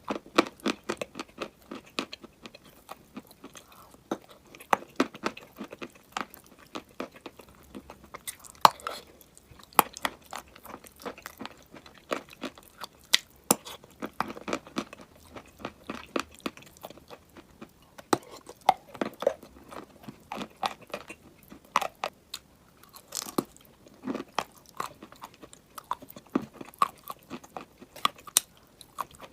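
Close-miked chewing and crunching of hard chalk or baked clay: bites, then irregular dry crackles and crunches several times a second.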